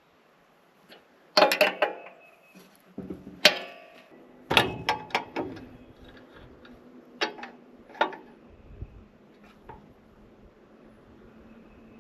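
Metal tools clanking and clinking against the sawmill's steel frame during hand adjustment: a burst of sharp knocks, some ringing briefly, in the first half, then a few single clinks.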